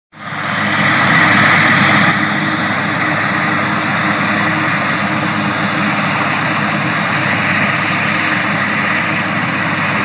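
Eurocopter AS332 Super Puma helicopter running on the ground with its rotor turning: a steady, loud rush of turbine and rotor noise with a thin high whine over it. It fades in at the start and drops slightly about two seconds in.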